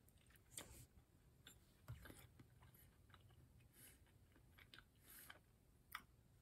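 Faint chewing of a mouthful of sugar cream pie with a crisp, overbaked crust: soft mouth sounds and a few small scattered clicks over near silence.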